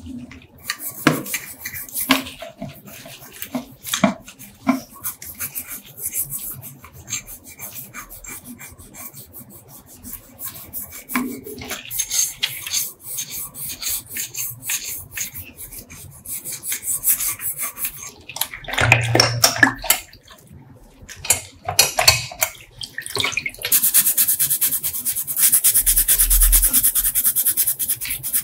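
Water sloshing, pouring and splashing as a metal tube is rinsed by hand in a plastic tub, with small knocks of metal against the tub. From about 24 seconds in, a brush scrubs a coil spring in a steady rasping.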